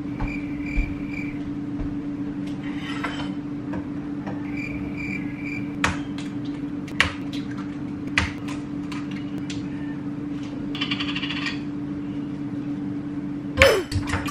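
Eggs tapped and cracked against a small glass bowl, then beaten with a fork: a series of sharp taps and clinks through the second half, over a steady low hum.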